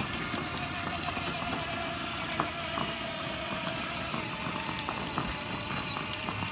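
A motor vehicle running steadily: a constant engine and road noise with a faint steady whine and a few small clicks.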